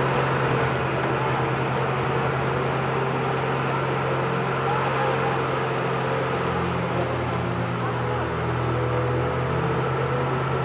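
Police water cannon truck running steadily, a low mechanical drone under the continuous hiss of its water jet spraying.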